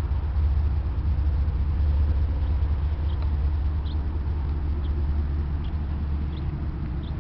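Steady low rumble of outdoor city background noise, with faint short high chirps scattered through it.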